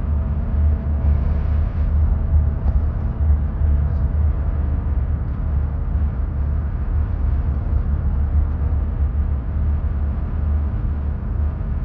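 Steady low rumble of a car driving along a paved road: tyre and engine noise heard from inside the car.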